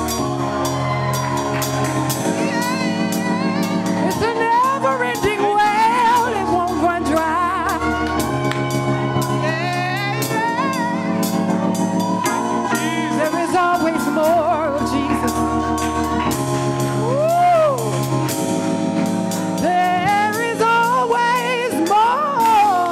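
Live gospel worship music: a voice singing freely over sustained chords and a bass line.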